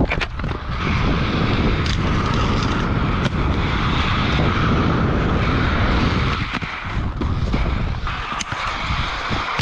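Rollerblade Lightning TRS inline skates on rocker wheels rolling fast over skatepark concrete with a scraping hiss for about five seconds, then lighter rolling broken by a few sharp knocks. The scrape is put down to a bolt on the skate dragging.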